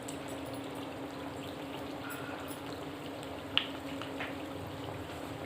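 Kachoris deep-frying in hot oil: a steady sizzle with scattered small crackles and one sharper pop about three and a half seconds in, over a steady low hum.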